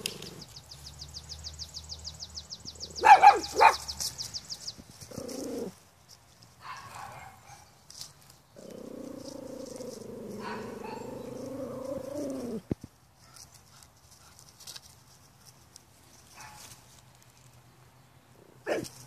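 Pomeranian puppy barking: two sharp barks about three seconds in and another near the end. A fast high ticking runs through the first few seconds, and a drawn-out wavering sound of about four seconds comes in the middle.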